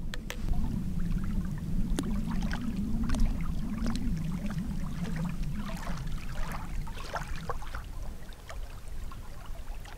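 Wind blowing steadily while small waves lap and splash on a sandy loch shore.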